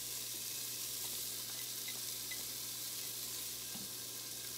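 Garlic, ginger and diced onion sautéing in a non-stick pot: a steady, soft sizzle.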